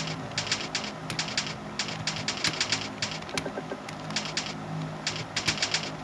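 Typing on a keyboard: keys clicking in quick runs of several strokes, with short pauses between the runs.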